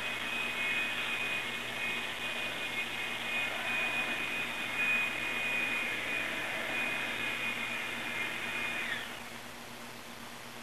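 A motorised machine running with a steady high whine over a rushing noise. It winds down and stops about nine seconds in.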